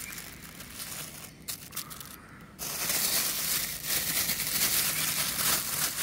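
Thin plastic bag of partly frozen mince crinkling and rustling as it is squeezed and worked open by hand. It gets much louder about two and a half seconds in.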